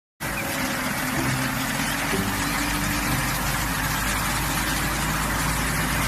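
Heavy truck's engine running at low speed as it creeps along, under a steady hiss of liquid spraying from a nozzle bar on its front bumper onto the road.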